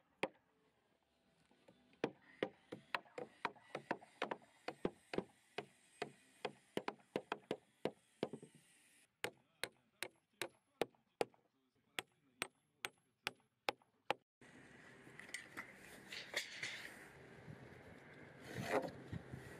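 Hammer driving nails into wooden beams: a quick run of sharp blows, then after a short pause another steady series of strikes. In the last five seconds a scratchy rubbing noise takes over.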